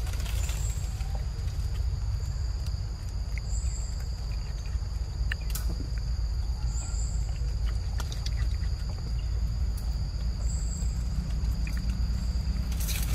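Insects in the forest: a steady high-pitched drone over a low rumble, with a few short higher chirps every few seconds and scattered faint clicks.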